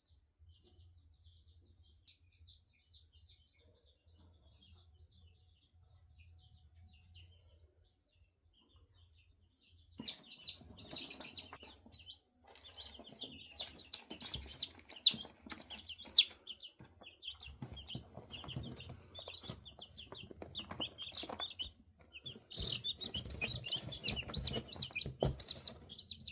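Many birds chirping in quick, high, short calls, faint at first and much louder from about ten seconds in, with scattered knocks and rustling.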